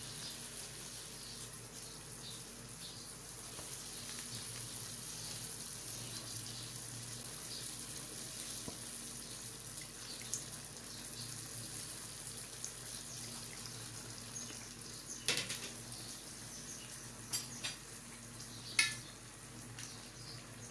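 Beignet dough rounds frying in hot oil in a frying pan, a steady sizzle throughout, with a few sharp clicks of a fork against the pan in the second half.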